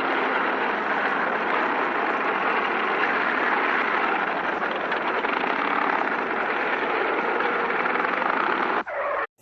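A steady hiss of static-like noise, spread evenly across the middle and upper range, which cuts off abruptly near the end.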